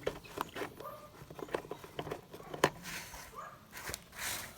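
Scattered clicks and knocks with brief rustling as a car seat's fittings are worked loose by hand, one sharp click the loudest about two and a half seconds in.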